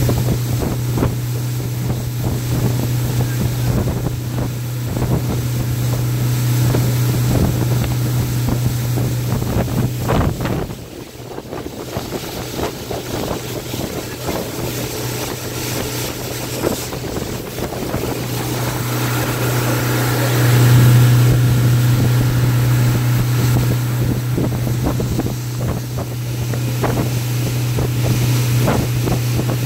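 Mercury outboard motor running at speed with a steady low drone, mixed with wind on the microphone and the rush of the wake. The engine sound drops briefly about ten seconds in and is loudest around twenty seconds in.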